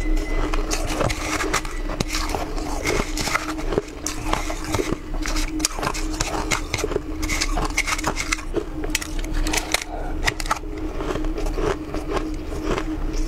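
Crunching and chewing of frozen shaved ice, with irregular crackling clicks as loose ice is handled in a steel bowl. A steady low hum runs underneath.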